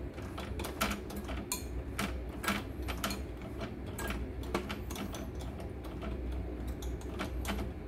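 Irregular clicks and ticks from an opened-up computerized embroidery machine's needle and hook mechanism as its handwheel is turned slowly by hand, over a steady low hum.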